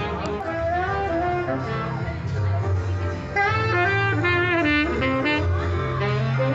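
Live street music: a horn plays the melody over a low bass line, and the melody turns busier about three and a half seconds in.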